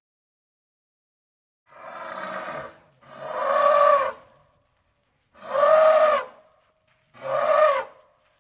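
An elephant calling four times. Each call lasts about a second and rises then falls in pitch. The first comes after a short silence and is quieter than the other three.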